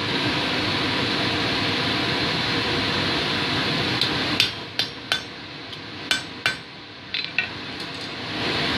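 Hammer striking a hand punch about eight times, sharp ringing metal blows, driving it through a hot steel bar on an anvil to knock the plug out and make the nail hole of a coat hook. A steady rushing noise fills the first half before the strikes begin.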